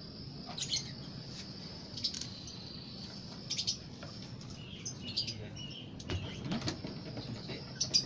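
Fischer's lovebirds chattering in short, sharp chirps, scattered irregularly a second or so apart.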